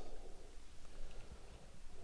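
Quiet room tone: a faint, even background with no distinct sound.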